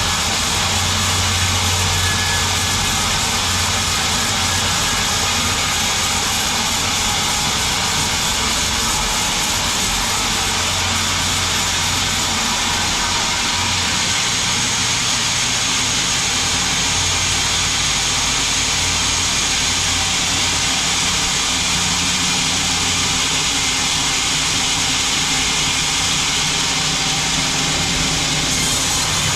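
Sawmill's band saw running steadily: a dense, loud hiss over a low motor hum.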